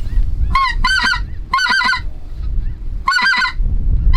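Geese calling: three bursts of quick, high-pitched honking notes, over a low wind rumble.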